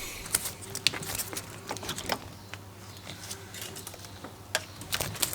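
Scattered light clicks and rustles of hands handling a car's wiring harness and plastic connectors, irregular and unrhythmic, over a faint steady low hum.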